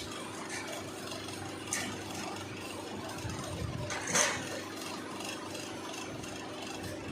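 Steady machine hum of a CNC bending machine running, with two short knocks, the louder one about four seconds in.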